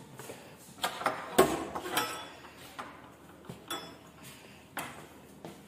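A string of sharp metallic clicks and knocks, the loudest about a second and a half in, from the metal latch and bolt of a wooden door being worked and the door swung open.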